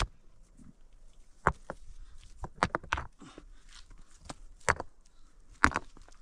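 About half a dozen sharp knocks or clacks at irregular intervals, like hard objects striking or being set down during manual work, with faint rustling between them.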